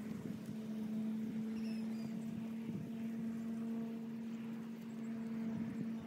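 A steady mechanical hum, a motor or engine running at one constant pitch, over a rough low rumble, with a couple of faint short chirps about two seconds in.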